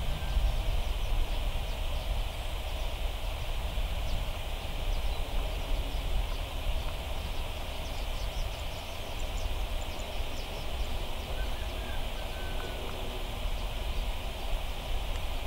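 Outdoor ambience: a steady high-pitched hiss over a low rumble, with a brief bird chirp about twelve seconds in.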